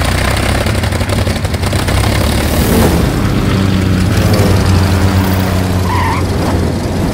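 Sound effect of a light single-engine propeller plane's engine running, with a steady deep hum.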